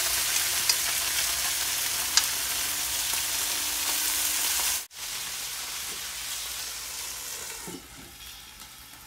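Calf liver and sliced onions sizzling steadily in a hot nonstick frying pan, with two light clicks of metal tongs against the pan early on. The sizzle drops quieter about five seconds in and again near the end as a lid goes onto the pan.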